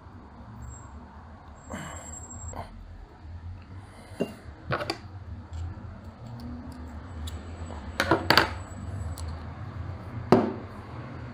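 Metal parts of a Kingrinder K4 hand coffee grinder clinking and clicking as they are handled and fitted together. There are a few scattered sharp clicks, with a loud pair about eight seconds in and another loud click near the end, over a low steady hum.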